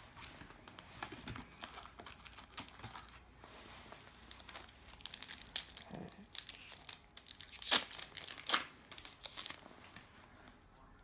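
Trading card pack wrapper crinkling and being torn open by hand: a run of irregular crackles, with two sharper, louder crackles a little past the middle.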